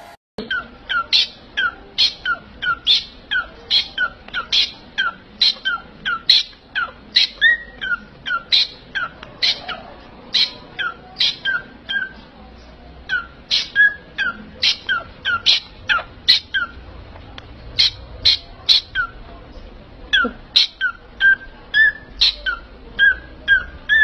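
A parrot giving a long series of short, sharp calls, about two a second, with a few brief pauses.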